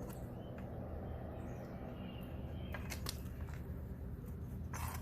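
A few light clicks and knocks from hands and parts being handled during work on a push mower, over a steady low hum.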